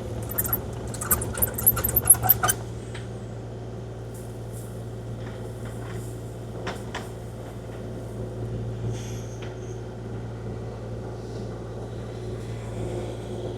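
Kubota KX040-4 mini excavator's diesel engine running steadily, with a flurry of clicks and rattles in the first two seconds or so.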